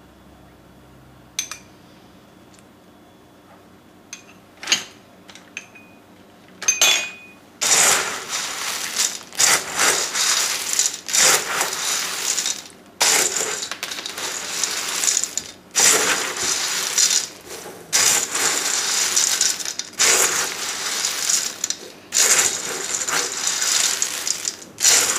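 A few light clinks, then from about eight seconds in a spoon stirring dry Nutri-Grain cereal and peanuts in a mixing bowl. The pieces make a dense rattling swish in repeated strokes with short breaks between them.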